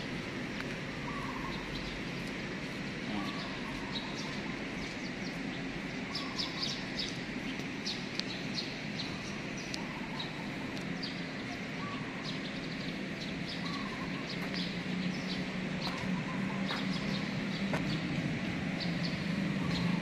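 Birds chirping repeatedly in short high notes, with a short rising call repeating about once a second, over a steady low hum that grows louder near the end.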